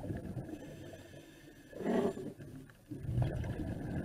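Underwater noise picked up by a submerged camera: a low, unsteady rumble of water, with a louder rush about two seconds in.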